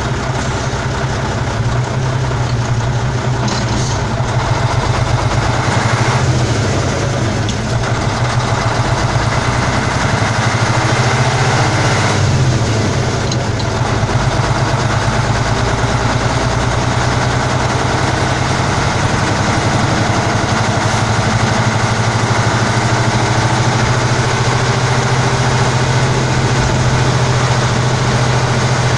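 Praga V3S military truck's air-cooled Tatra six-cylinder diesel running under way, heard from inside the cab. The loud, steady drone shifts in note a few times in the first half, then holds steady.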